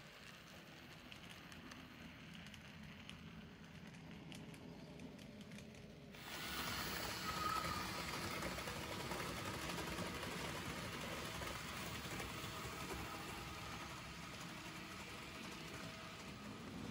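N gauge model trains running on the layout's track: a faint low rumble of small wheels and motor. About six seconds in it turns suddenly louder and fuller, a steady whirring rumble.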